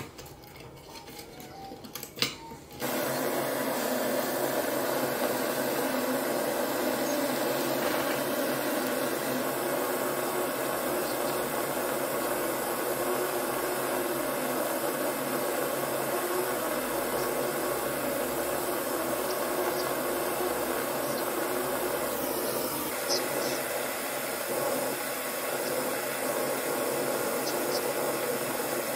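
Small taps of a metal solder pick on a chain link, then about three seconds in a gas torch starts suddenly and runs with a steady hiss while it heats the link to flow the solder on its join.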